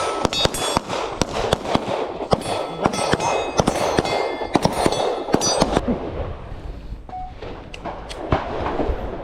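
Rapid, irregular gunfire, many sharp cracks close together, some with a brief metallic ring. It thins out to a few scattered shots about five and a half seconds in.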